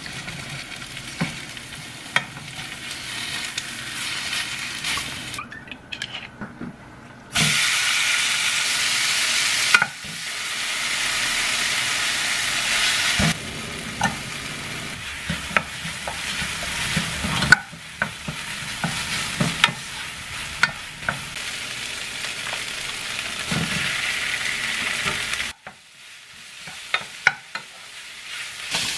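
Food sizzling in a frying pan: eggs frying, then kimchi, diced ham and rice being stir-fried, with a wooden spatula and chopsticks scraping and clicking against the pan. The sizzle jumps in level at cuts, is loudest for a few seconds about a quarter of the way in, and drops away briefly near the end.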